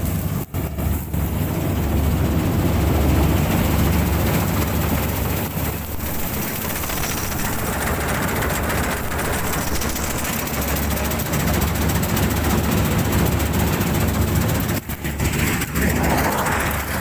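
Combine harvester running steadily, its engine and machinery giving a continuous low hum, with two brief dips in level about half a second in and around fifteen seconds.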